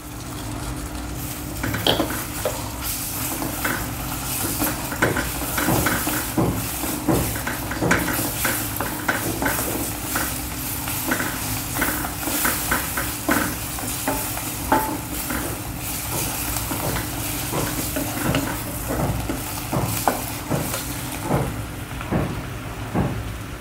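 Chopped spinach sizzling in hot oil and chickpea-flour paste in a stainless steel kadai, with a wooden spatula stirring and scraping against the pan in many short strokes. The sizzle thins out near the end.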